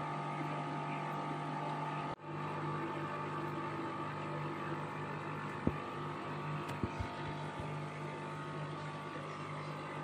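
Steady mechanical hum of aquarium air pumps and filters running, with a few faint clicks in the second half. The sound drops out briefly about two seconds in.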